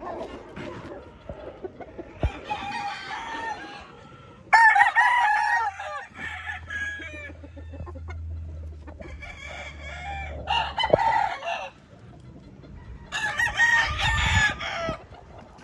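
Gamecocks crowing in turn, about five crows, some overlapping from different birds. The loudest crow comes about four and a half seconds in.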